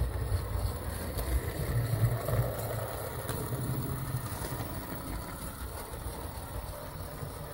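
O gauge model N7 tank locomotive running steadily along the track, its ABC gearbox and Maxon motor giving a quiet, even mechanical running sound with wheel noise on the rails.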